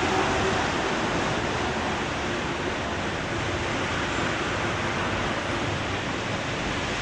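Steady rushing hiss of a wet city street: rain and tyres on wet tarmac. It is a little louder at the start, then even.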